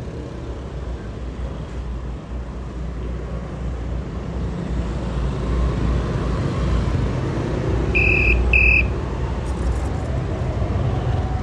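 Motor vehicle traffic running close by, a low rumble that builds to its loudest about eight seconds in. Two short high beeps sound about eight seconds in.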